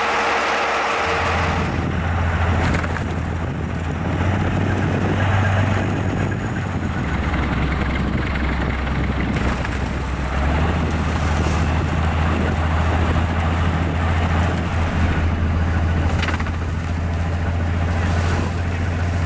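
Railway rotary snowplow at work: a steady, loud low engine drone under the continuous rushing hiss of snow being thrown by the blower. The drone steps in pitch a few times.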